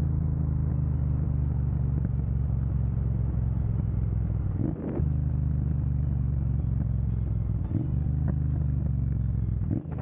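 2022 Triumph Bonneville Speedmaster's 1200 cc parallel-twin running steadily through a Dr. Jekill & Mr. Hyde aftermarket exhaust. The low exhaust note breaks off briefly twice, about five and eight seconds in.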